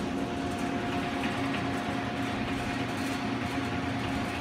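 Solbern rotary spice dispenser (volumetric cup filler) running on test: a steady mechanical drone of its electric drive turning the cup wheel, with a few steady tones over it.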